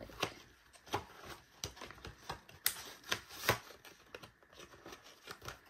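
Irregular light taps and clicks of album contents (cards, booklets, paper) being handled and packed back into a cardboard album box, with two sharper knocks past the middle.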